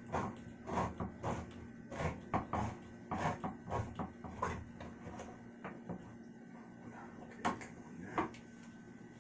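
Hand-held can opener cutting around the lid of a metal can: a run of irregular clicks and ticks as the handle is turned, thinning out after about five seconds, with two sharper clicks near the end.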